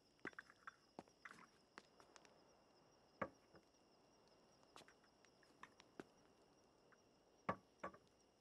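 Quiet night ambience with a faint steady high insect drone, broken by scattered soft taps and clicks of cups and saucers being set on a low table and of footsteps; the loudest knocks come about three seconds in and again about seven and a half seconds in.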